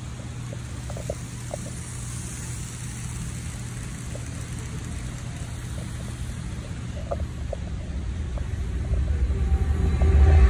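Model train running on the layout: a steady low hum with light, scattered clicks from the wheels on the track. A low rumble grows louder near the end.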